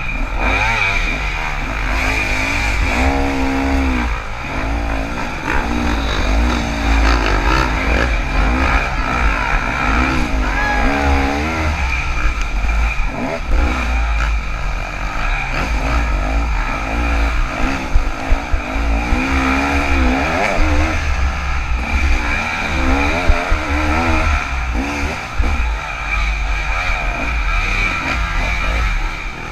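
KTM 300 two-stroke dirt bike engine revving up and down as it is ridden through a woods trail, with a steady low rumble underneath and a few sharp knocks in the second half.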